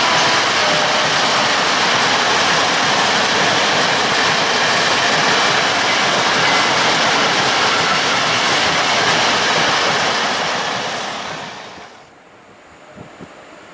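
Freight train of open coal wagons rolling past at close range, a loud, steady rush of wheel and rail noise. It cuts off abruptly about twelve seconds in, leaving quiet outdoor ambience with two faint knocks.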